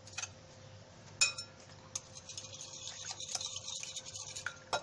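Wire whisk beating eggs and oil in a glass bowl: a few separate clinks, then about two seconds of rapid light ticking of the metal wires against the glass, ending with one more clink.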